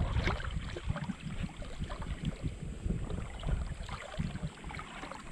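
Wind buffeting the microphone in uneven low rumbles, over shallow sea water lapping, with many small scattered ticks and splashes.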